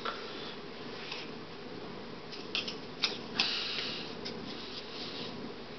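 Room tone: a faint steady hum, with a few short rustling clicks about two and a half to four seconds in.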